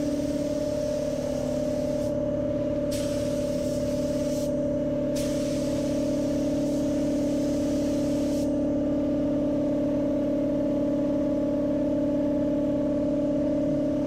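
Air spray gun hissing in three long bursts as high-build primer surfacer is sprayed, over a steady machine hum. The hiss stops about two-thirds of the way through while the hum carries on.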